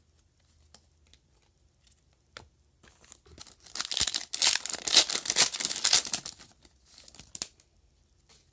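A trading-card pack wrapper being torn open and crinkled, a few small handling clicks first, then about three seconds of loud crackling tearing, with a couple of smaller crinkles near the end.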